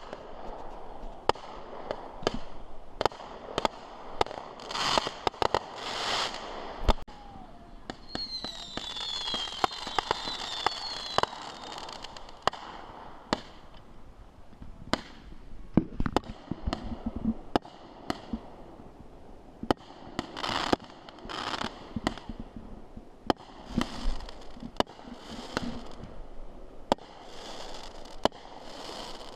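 Fireworks display: a rapid string of sharp bangs from bursting shells, with several bursts of crackling. A high wavering whistle runs for a few seconds about eight seconds in.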